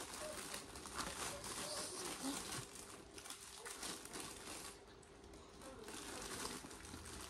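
Close-miked eating sounds: chewing fried chicken, with soft crackling and smacking throughout.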